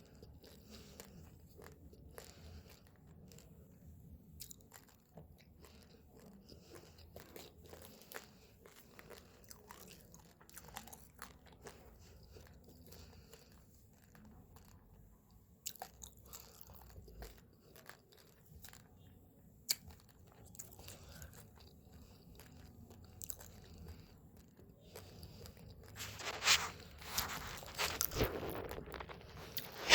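Raw, uncooked rice grains being bitten and chewed close to the microphone: a steady run of small sharp crunches and cracks. The crunching grows denser and louder near the end.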